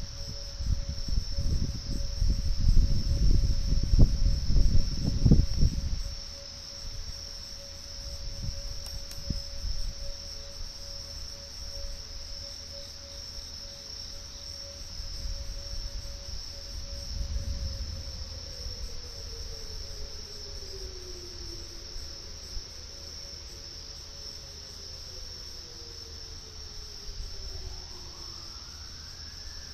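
Tornado warning sirens sounding: a steady wailing tone that slides down in pitch about two-thirds of the way through, with a siren tone rising again near the end, over the steady chirring of crickets. A loud low rumble fills the first six seconds.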